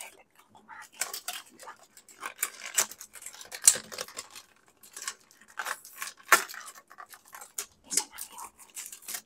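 Close-miked chewing and wet mouth sounds: irregular smacks, clicks and breaths of a person eating, picked up by a lapel microphone.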